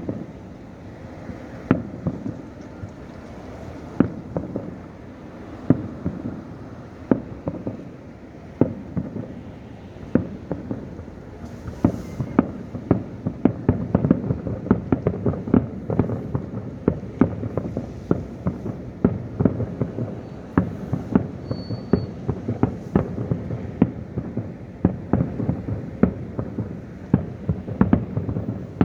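Fireworks going off: sharp booming bursts every second or two at first, then a rapid barrage of many overlapping bangs from a little before halfway through.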